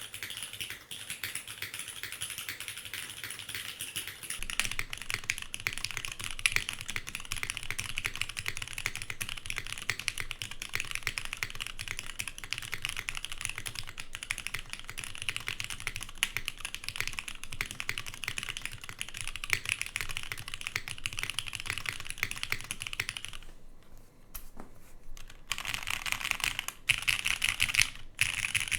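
Continuous fast typing on a Flybeck Khora65 custom mechanical keyboard, with lubed and filmed Cherry MX1A Nixie linear switches on a nylon plate under GMK keycaps. It is a dense run of key clacks that pauses briefly about two-thirds of the way through, then starts again.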